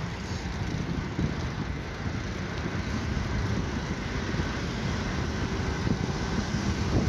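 Wind noise on the microphone of a phone carried on a moving bicycle: a steady low rumble with a hiss above it.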